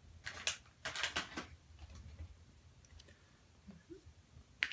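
Short scuffling noises as the cat's paw is handled, then about four and a half seconds in a single sharp click of nail clippers cutting through a Ragdoll cat's claw.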